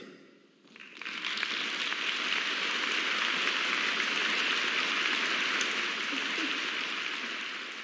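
A large audience applauding: the clapping starts about a second in, rises quickly to a steady level and begins to taper near the end.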